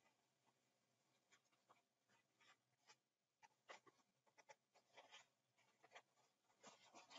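Near silence with faint handling noises: scattered light clicks and rustles of a small plastic device and its strap being worked by hand, a little busier in the second half.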